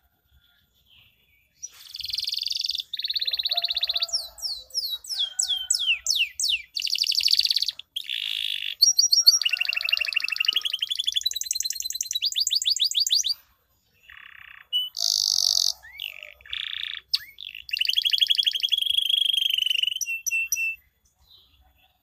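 Domestic canary singing: a long song of chirps, falling sweeps and fast rolling trills with short breaks. It starts about two seconds in and stops about a second before the end.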